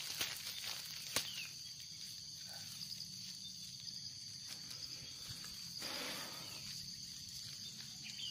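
Steady, high-pitched drone of an insect chorus, with a single click about a second in and a brief rustle of a grass clump being handled around six seconds in.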